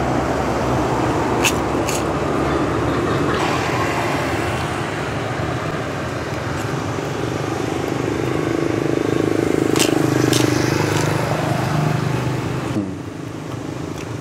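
Road traffic going past close by, a steady rumble of engines and tyres that swells about ten seconds in as a vehicle passes, then drops away suddenly near the end. A few light clicks are heard.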